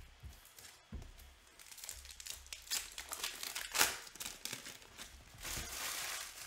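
Foil wrapper of a 2021 Panini Illusions football card pack crinkling and tearing as it is ripped open by hand, in a series of short crackles with the loudest rip a little under four seconds in.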